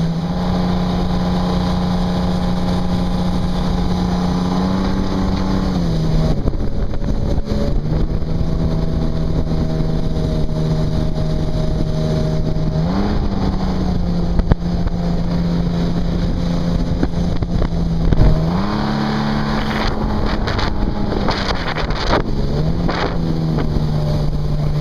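Jet boat engine running hard under way, a steady engine note that dips in pitch and picks up again several times, over a rush of wind and water, with two brief knocks midway.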